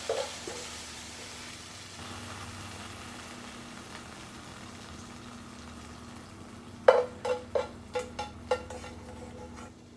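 Sautéed spinach sizzling faintly in hot oil in a non-stick pan. About seven seconds in come about six sharp clicks with a short ring as the kitchen tongs tap against the pan while the spinach is lifted out.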